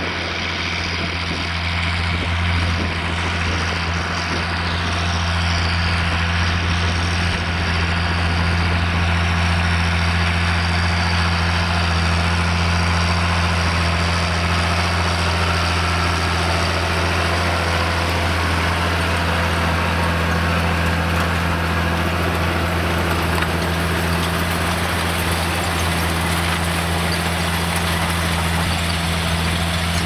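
John Deere 8410 tractor's six-cylinder turbo diesel running steadily under load as it pulls a Kinze 3600 corn planter, a continuous deep engine drone that grows a little louder over the first few seconds as the tractor comes closer, then holds steady.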